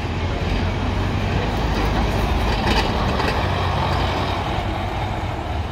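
Double-decker bus's diesel engine running with a steady low drone as the bus pulls slowly past close by, with a brief hiss about halfway through.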